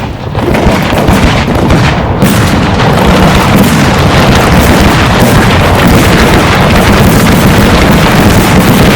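Aerial fireworks shells bursting in rapid succession: many booms and pops overlapping in a dense, loud barrage that builds over the first half-second and then keeps up without a break.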